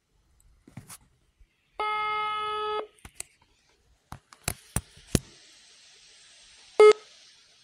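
Telephone call ringing on the line: one steady ringback tone of about a second, then a string of sharp clicks as the call connects. A faint line hiss follows, with one short beep near the end.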